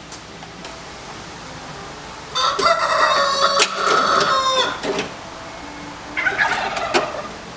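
A rooster crowing close by: one long crow starting about two seconds in and lasting over two seconds, then a shorter call near the end.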